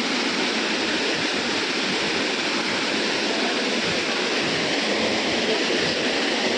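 Tirathgarh Waterfall's water pouring down over rock: a loud, steady rush of falling water that does not change.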